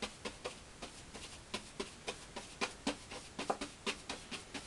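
Paintbrush tapping and stroking oil paint onto a canvas: quick, irregular taps, about four or five a second.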